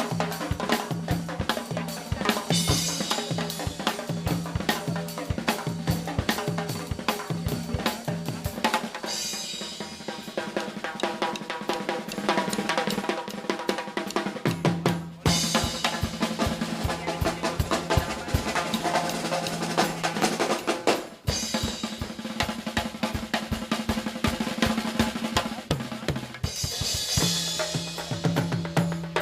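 Live percussion music: fast, dense drum kit playing with snare and bass drum and rolls over a steady low held note, with high cymbal-like washes coming in several times and brief breaks in the rhythm about halfway through.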